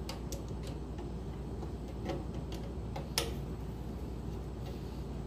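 Screwdriver clicking and tapping against the metal terminal screws of a well pump pressure switch as it is wired up, in irregular sharp clicks with the loudest about three seconds in. A steady low hum runs underneath.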